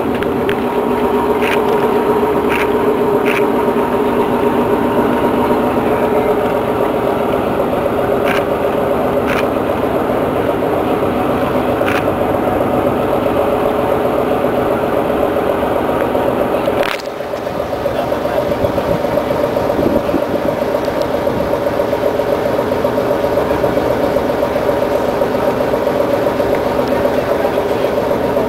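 A steady engine drone, with a few short clicks over it in the first twelve seconds; it breaks off for a moment about seventeen seconds in.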